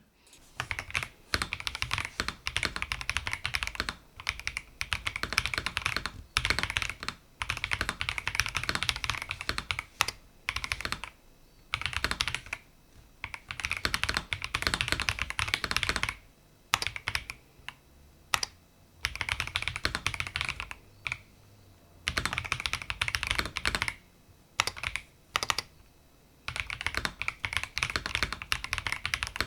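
A Logitech Alto Keys K98M mechanical keyboard with its stock soft switches being typed on at an average of about 70 words a minute. Rapid keystroke clacks come in bursts of a second or a few seconds, broken by short pauses.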